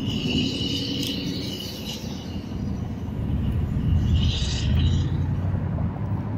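Road traffic going past: the hiss of tyres and the rumble of engines, with one vehicle passing loudest about four to five seconds in.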